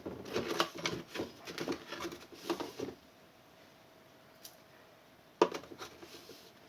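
Kitchen handling clatter: a quick run of small clicks and knocks for about three seconds, then one sharp knock a couple of seconds later followed by a little more clatter.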